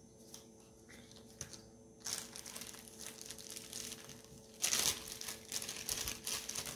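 Packing material crinkling and rustling as it is handled. It starts about two seconds in, with a louder burst of crinkling past the middle.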